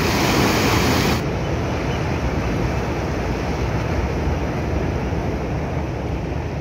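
Sea waves washing against a rock breakwater, with wind rumbling on the microphone. About a second in, the hissy upper part of the sound drops away abruptly.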